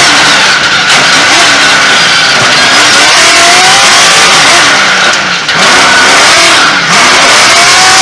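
Trophy truck's race engine at full racing pace, heard from inside the cab. It revs up and down, drops off sharply about five seconds in and again near seven seconds, then climbs again. Loud throughout, with a steady high whine over the engine.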